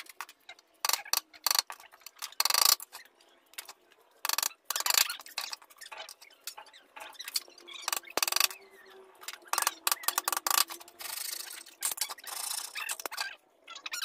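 Bamboo slats being cut and trimmed by hand with a blade and cutting pliers: a run of irregular scrapes and short rasping strokes with sharp clicks.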